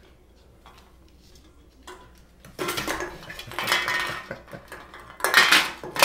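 Cans clattering against each other and the floor as a parrot knocks them out of its toy box. A few light knocks at first, then dense clattering from about two and a half seconds in, loudest near the end.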